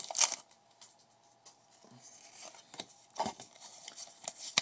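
Foil wrapper of a Pokémon trading-card booster pack crinkling briefly at the start, then soft rustles and a few light ticks as the pack and its cards are handled.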